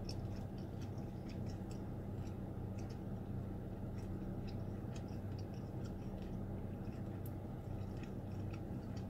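Close-mic chewing of a crispy fried egg roll: a steady run of small, irregular crackling clicks, over a steady low hum.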